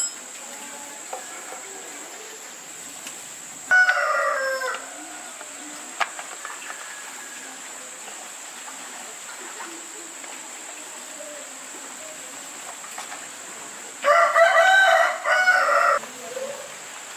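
A rooster crowing twice: a shorter crow about four seconds in, and a longer one of about two seconds near the end.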